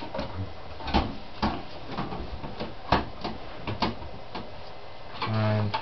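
Scattered sharp clicks and knocks as hands work the buttons of a desktop computer tower and its monitor to switch them on. A short droning sound comes near the end.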